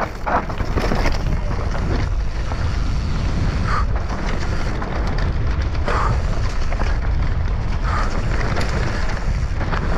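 Wind rushing over the microphone as an enduro mountain bike descends at speed, with tyres rolling over dirt and dead leaves and the bike rattling and knocking over bumps.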